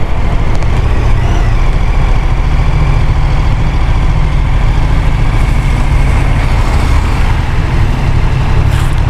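KTM motorcycle running at low speed through town traffic, slowing to a crawl. Its engine and wind on the mic make a loud, steady low rumble.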